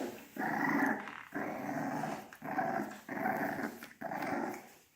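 Puppy growling: about five short, rough play growls in a row, each under a second, with brief pauses between them.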